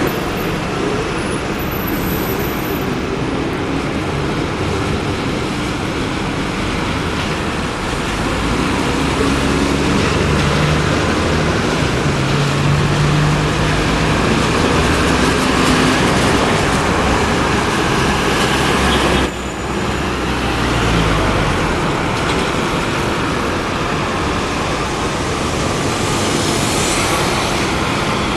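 City street traffic noise, with double-deck buses and other vehicles passing. Partway through, a low engine drone rises in steps.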